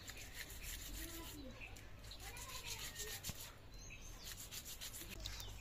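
Faint rubbing and scraping in quick strokes, with short bird chirps in the background.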